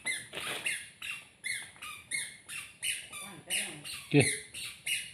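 Birds chirping: short, high calls, each dropping in pitch, repeated about twice a second, with one lower call about four seconds in.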